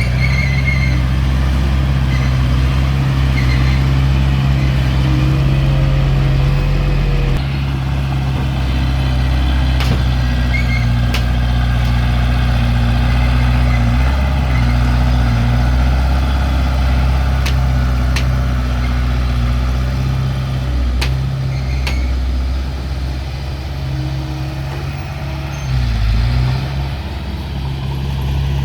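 Diesel engine of heavy earthmoving equipment running steadily under load, with a few sharp clicks or knocks. The engine note dips briefly about two-thirds of the way through.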